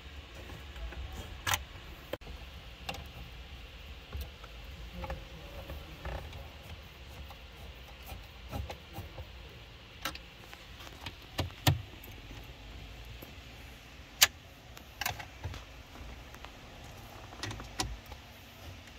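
Scattered clicks and small knocks of hand tools and parts. A driver on a flexible shaft extension works the metal bracket bolts of a head unit in a car dash, and a screwdriver and trim parts are handled.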